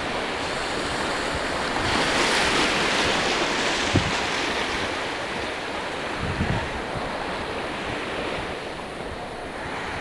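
Gentle Mediterranean surf washing over a shallow sandy shore: a steady hiss of water that swells about two seconds in and then eases off. A few soft low thumps are heard, the sharpest about four seconds in.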